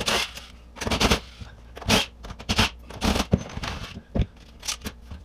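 Cordless impact driver backing screws out of a refrigerator's sheet-metal rear access panel in a string of short rattling bursts, with the metal panel clattering between them.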